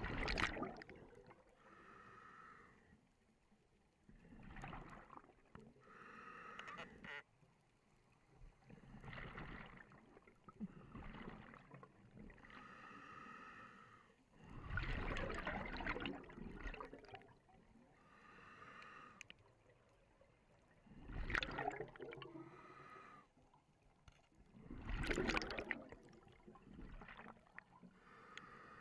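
Scuba diver breathing through a regulator underwater: a burst of exhaled bubbles, then a hissing draw on each inhalation, about six breaths, one every four to five seconds.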